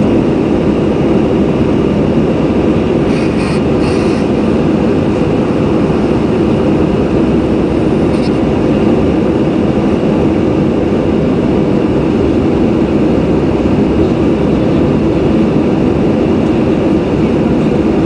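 Airbus A319 cabin noise during the climb-out after takeoff: a loud, steady roar of the jet engines and rushing air, heard from a window seat.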